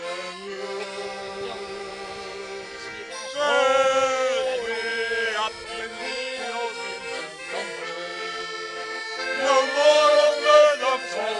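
Piano accordion playing the tune of a sailors' song, with a man's voice singing loud held, wavering notes over it about three and a half seconds in and again near the end.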